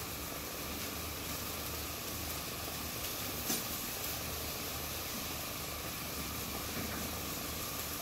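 Steady low mechanical hum with an even hiss, from the vertical döner grill and kitchen equipment running. One sharp click about three and a half seconds in.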